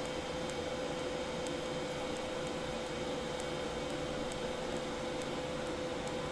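TIG welding setup giving a steady hiss with a constant mid-pitched hum and a few faint, scattered ticks.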